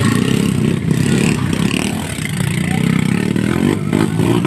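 Motocross bike engine revving unevenly as the bike is ridden through deep mud, its pitch rising and falling with the throttle.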